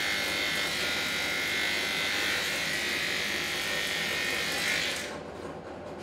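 Electric dog grooming clipper fitted with a No. 10 blade, buzzing steadily as it clips the hair on a dog's head. It stops about five seconds in.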